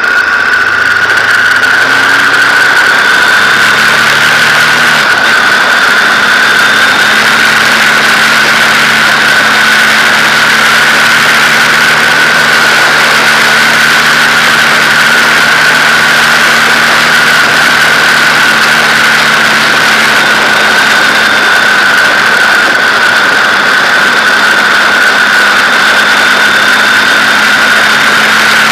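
Onboard sound of a BMW R1200GS's boxer-twin engine pulling at road speed under a loud rush of wind, with a constant high whine. The engine note climbs over the first few seconds, changes about five seconds in, then holds steady.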